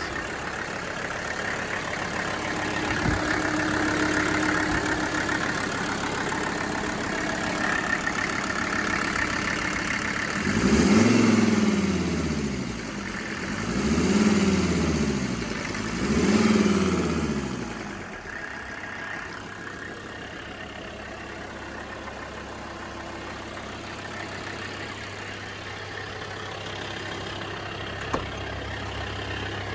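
Mercedes OM617 five-cylinder turbo diesel idling in a Jeep Comanche, revved up and let fall back three times about a third of the way in, then settling to a steady idle.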